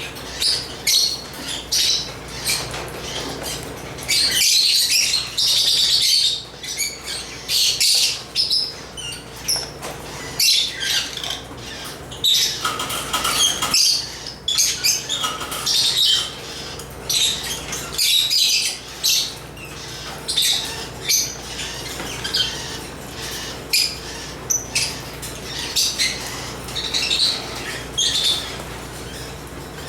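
African lovebirds chattering continuously, a dense stream of high-pitched chirps and squawks with short sharp calls, over a faint steady hum.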